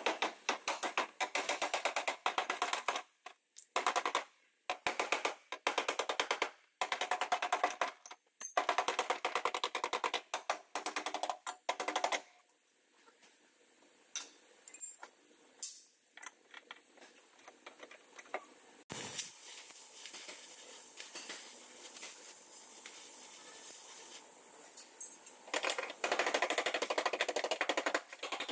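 Pneumatic air tool hammering rapidly on car body metal in short machine-gun-like bursts. It stops for a while midway, with one sharp knock, then starts hammering again near the end.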